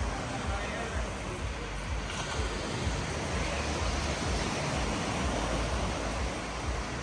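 Gentle sea surf washing onto a sandy beach, a steady rushing noise, with wind rumbling on the microphone.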